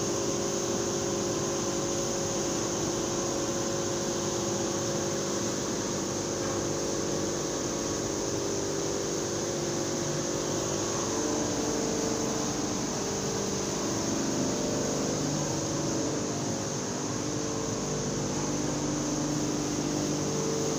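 Grain mill machinery running: a steady mechanical drone with several held hum tones and a high hiss. The mix of hum tones shifts about halfway through.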